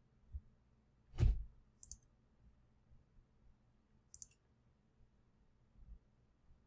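Two sharp computer mouse clicks about two seconds apart, after a louder dull thump about a second in.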